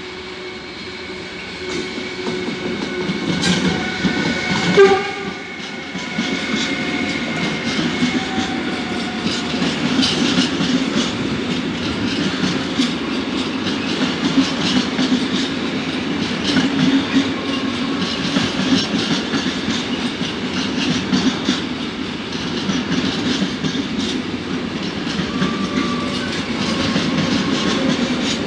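Siemens Vectron electric locomotive passing at speed with a freight train of intermodal flat wagons, partly loaded and partly empty. Steady high tones come from the locomotive over the first eight seconds, loudest about five seconds in as it goes by. After that comes a steady rumble and clickety-clack of the wagons rolling past.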